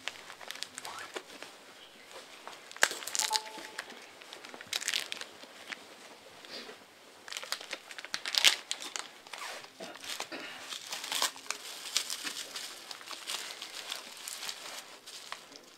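Tape and plastic-film wrapping of a pressed brick crinkling and tearing as it is cut and peeled open with a folding knife: irregular crackles and rustles, loudest about eight and a half seconds in.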